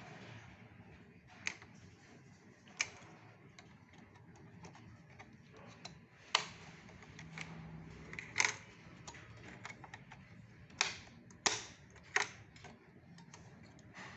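Scattered sharp plastic and metal clicks at irregular intervals as a RAM stick is handled and pressed into the empty memory slot of an Acer All-in-One C22-1650 PC, the loudest clicks coming in the second half.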